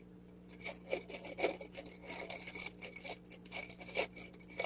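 Clear plastic packaging bag crinkling and rustling as hands pull out the pieces of a diamond-painting ornament kit: a rapid, irregular crackle.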